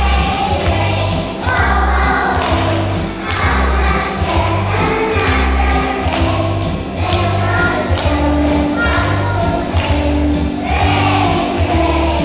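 Music: a group of voices singing over a backing track with a steady bass line and a regular beat.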